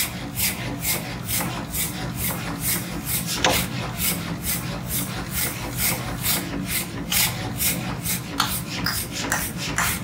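Steel being worked with a rasping metal tool: rhythmic scraping strokes, about two to three a second, over a steady low machine hum.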